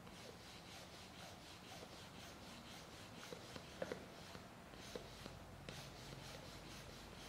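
Faint gritty rustling and rubbing of fine sand shifting against a rubber balloon, with a couple of small clicks just before four seconds.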